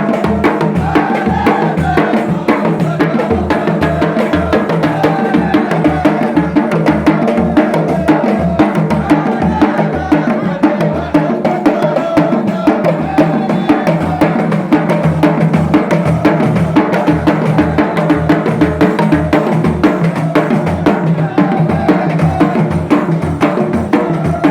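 Music with a steady, regular drum beat and a deep bass pulse about twice a second, with pitched melody lines over it.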